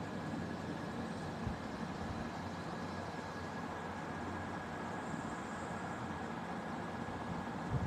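Steady background hum and hiss with a thin, faint high whine running through it, and one soft knock about a second and a half in.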